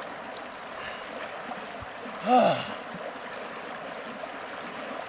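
River water rushing steadily. About two seconds in, a person gives one short, loud cry that rises and falls in pitch.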